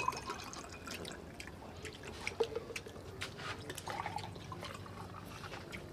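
Scattered small wet clicks and smacks of people chewing and eating with their fingers, over a faint steady low hum.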